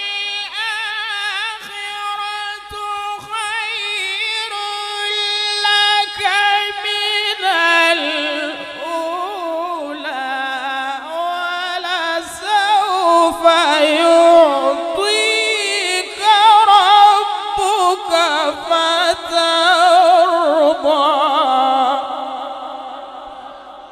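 A man's voice in melodic Qur'an recitation, drawing out long held notes with wavering ornaments. It grows louder in the second half and fades away near the end.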